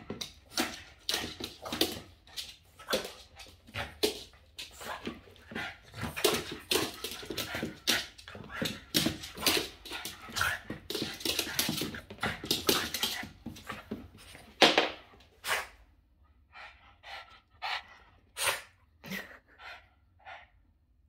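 Boston terrier playing rough with a feather duster: a fast, irregular run of short dog sounds and scuffs that thins out about fifteen seconds in.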